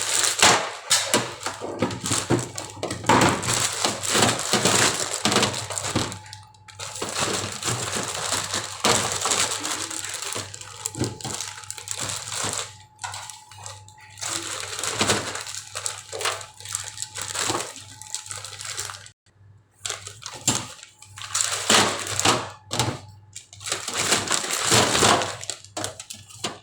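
Crinkling and rustling of food packaging, with small clicks and knocks, as food is sorted and packed for the fridge. The sound comes in irregular bursts over a faint steady hum.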